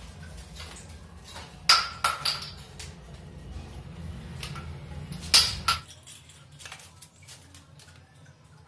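Sharp clinks and knocks of hard plastic plugs against brass wall fittings as the plugs are twisted out of a wall-mixer pipe point: three in quick succession, then two more a few seconds later. After about six seconds only faint ticks remain.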